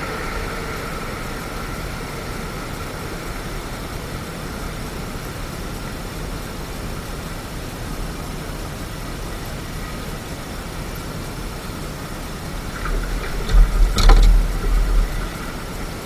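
Steady low noise, then a few knocks and a low rumble about 13 to 15 seconds in as a man gets up from a crouch on the deck of a small fishing boat.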